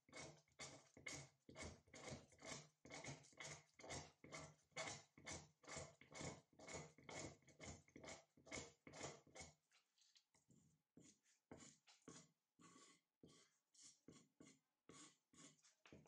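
A knife blade scraping along a fatwood stick into fine resinous shavings for tinder, in quick even strokes about three a second. About ten seconds in, the strokes turn lighter and more spaced out.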